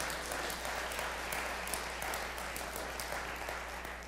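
Church congregation applauding, the clapping dying away toward the end.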